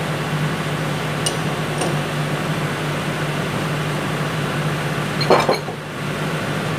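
A heavy cast-iron brake caliper lifted out of a bench vise and set down on the workbench with one short metallic clunk about five seconds in, after two light metal clicks from the vise handle near the start. A steady mechanical hum runs underneath.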